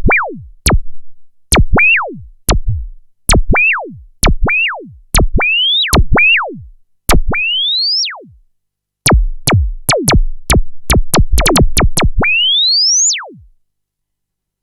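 Roland JD-990 synthesizer playing a percussive sweep patch. Single notes each start with a click and a clear tone that drops steeply in pitch, while a few instead glide upward. They come in an uneven rhythm, with a quick run of notes in the middle and one long rising sweep near the end.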